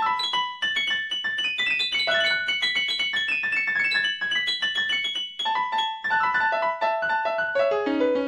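Solo piano music, a fast run of bright, quickly repeated notes high on the keyboard.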